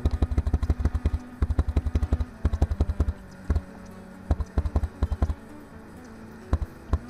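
Computer keyboard key, likely the down-arrow, tapped rapidly over and over in runs of sharp clicks, each with a dull thud, with short pauses between runs and a longer lull past the middle.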